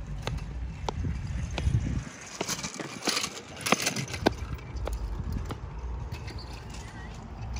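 Big-wheeled kick scooter rolling over skatepark concrete: a low rolling rumble with scattered clicks and rattles as the wheels and deck cross the rough surface. The rumble drops away for a couple of seconds in the middle while the clicks go on.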